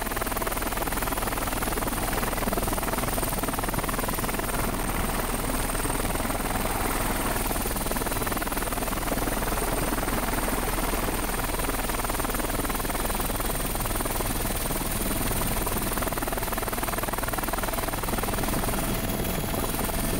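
Steady helicopter engine and rotor noise, heard from aboard, with no change in level.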